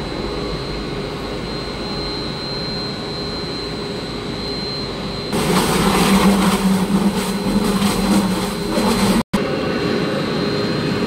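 Twin-shaft putty mixer running with a steady motor drone and a thin high whine. About five seconds in, a louder churning noise with a low drone comes from the open mixing vessel as the shafts stir the material. It cuts off abruptly near the end and the steadier drone returns.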